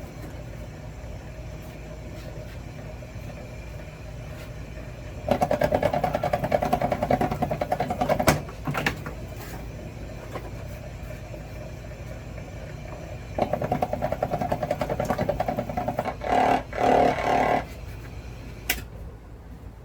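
Motorized wire stripping machine working wire through its rollers and blade: a low steady hum, broken by three loud stretches of fast-pulsing whir, about five seconds in, about thirteen seconds in and again just after sixteen seconds, with a sharp click or two.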